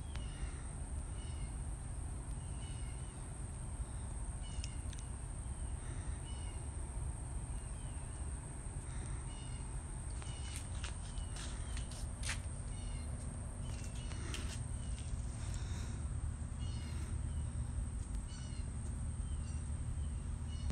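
Birds chirping in the background: short, high calls repeating irregularly about once a second, over a low steady rumble and a thin steady high whine.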